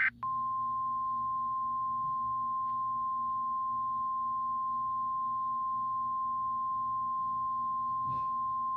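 Emergency alert attention tone: a single steady tone of about 1 kHz that starts a moment in and holds at one unchanging pitch and level, the signal that announces the spoken alert message.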